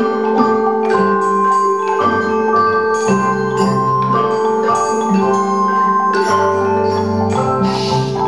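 A children's ensemble of Orff wooden xylophones and metallophones played with mallets: a steady tune of struck, ringing bar notes over low notes that each sound for about a second.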